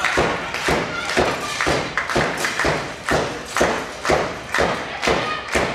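Audience clapping in unison in a steady rhythm, about two claps a second, echoing in the hall.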